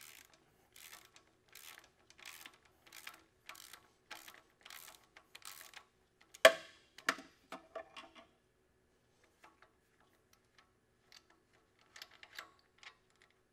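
Hand ratchet clicking in short, even strokes, about one and a half a second, while unscrewing a dummy plug from the high-pressure oil rail of a Ford 6.0 Powerstroke diesel. About six and a half seconds in comes one loud, sharp metallic clank, then a few lighter knocks. Faint small clicks near the end as the loosened plug is handled.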